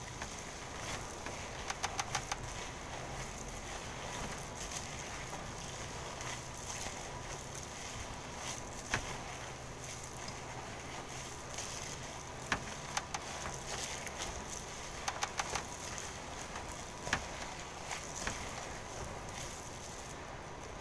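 Hands squeezing and kneading a raw ground-meat meatloaf mixture in a stainless steel bowl: soft squelching with scattered light clicks and taps against the bowl.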